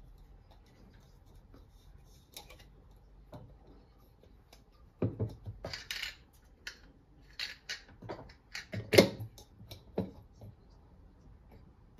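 Kitchen handling sounds: scattered clicks, taps and light clatter of utensils and dishes, coming thickest in the middle and loudest about nine seconds in.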